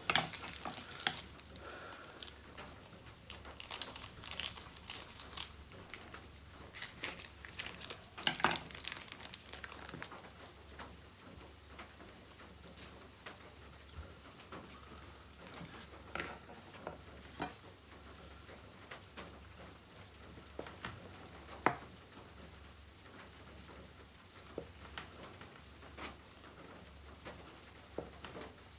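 Plastic vacuum-pack wrapping of a block of bread cheese being handled and opened, with dense crackling and crinkling for about the first ten seconds. After that come sparse sharp clicks and taps as the cheese is sliced with a knife on a wooden cutting board.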